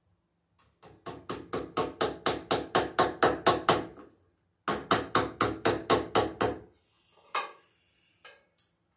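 Rapid knocking impacts, about four a second, in two runs of a few seconds each with a short break between, as a screw is driven into a hardwood ceiling beam; the knocks grow louder through the first run. A few faint clicks and one sharper knock follow near the end.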